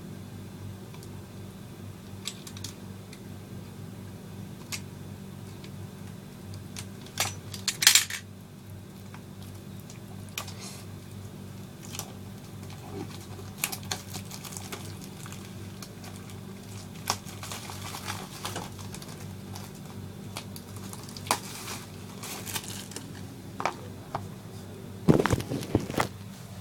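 Scattered clicks, taps and rustles of a parcel being opened and its contents handled, with a louder clatter about eight seconds in and another near the end, over a steady low hum.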